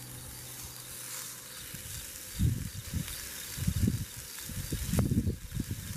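Hamburger patty sizzling in a skillet on a gas camp stove, a steady hiss. From about two seconds in, louder low rumbles and thumps come and go over it.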